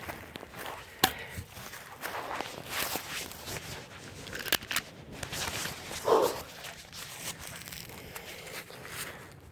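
Footsteps crunching and rustling through brush and dry undergrowth, with two sharp clicks, about a second in and near the middle.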